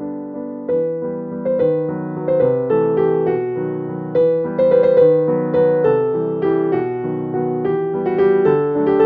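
Background piano music, notes struck one after another at an even pace.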